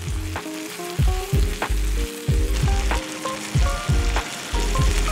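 Vegetables and sausage sizzling in a Jetboil skillet as they are stirred with a spatula, over background music with short melodic notes and a heavy bass.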